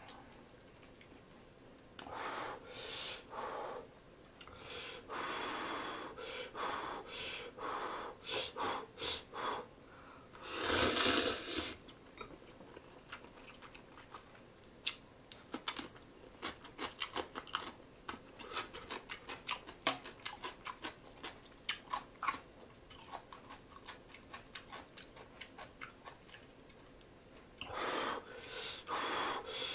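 A person eating instant ramen noodles: bursts of slurping, with one long loud slurp about eleven seconds in, then a long stretch of many small quick clicks from chewing, and more slurping near the end.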